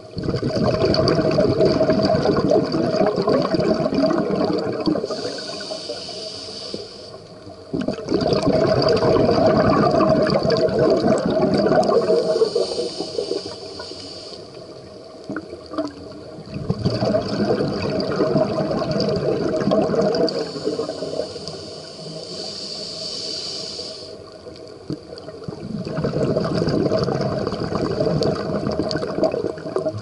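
Scuba diver breathing through a regulator underwater: a high hiss on each inhale, then a loud burst of bubbling exhaust on each exhale, four breaths about eight seconds apart.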